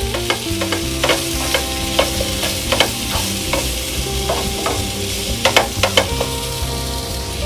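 Wooden spatula stirring spiced potato cubes in a non-stick frying pan: irregular light scrapes and taps against the pan over the steady sizzle of the potatoes frying on a low flame, with a few louder taps a little past halfway.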